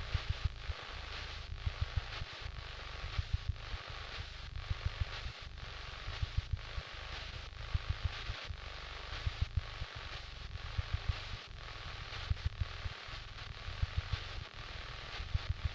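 Cockpit audio of an Aviat Husky, picked up through the aviation intercom, as it comes in at low power and touches down on a gravel strip. There is a faint steady hiss, with short low thumps coming in irregular clusters throughout.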